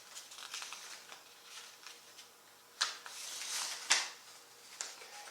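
Sheets of paper being handled and rustled, with scattered light clicks and two sharper clicks or knocks about three and four seconds in.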